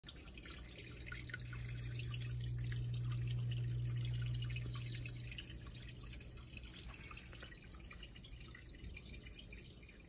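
Water dripping in a small terrarium waterfall, in scattered faint drops, over a low hum that fades out about five seconds in.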